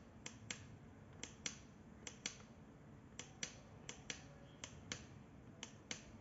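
Faint, sharp clicks, mostly in pairs about a quarter-second apart, recurring roughly once a second at uneven intervals.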